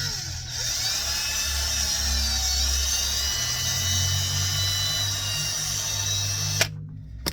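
A high-speed electric power tool runs with a high whine and hiss, its pitch wavering slightly as it works. It cuts off abruptly near the end.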